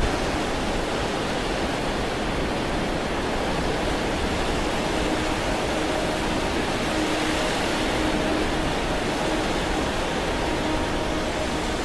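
Shallow Baltic Sea waves washing over wet beach sand: a steady rush of water. A faint low hum comes and goes from about halfway through.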